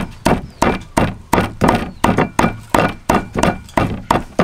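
A cleaver chopping dried red chillies on a chopping block: a steady run of sharp knocks, about three a second.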